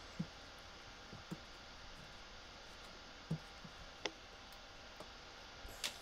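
A handful of faint, scattered clicks and light knocks from hands handling the plastic fittings at the coupler joint between a macerator pump unit and the toilet bowl.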